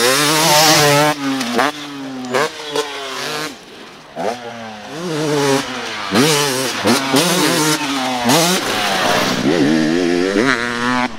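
KTM two-stroke dirt bike engine revving hard, its pitch climbing in repeated sweeps and dropping sharply at each gear change or throttle chop, with a quieter stretch about four seconds in.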